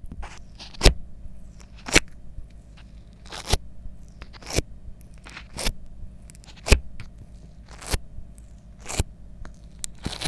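Slime being pressed and worked by hand, giving a sharp pop about once a second with softer sticky crackling between.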